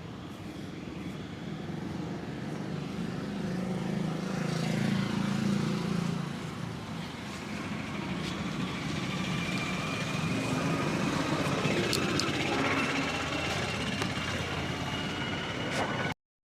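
Street traffic: vehicle engines running and passing, swelling and fading twice. The sound cuts off abruptly near the end.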